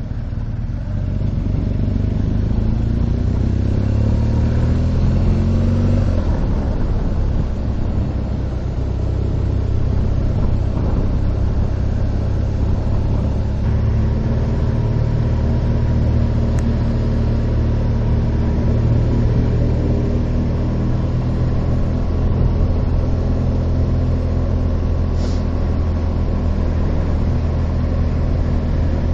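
Motorcycle engine under way, rising in pitch as it accelerates, with a gear change about six seconds in, then running fairly steadily at cruising speed with wind rush.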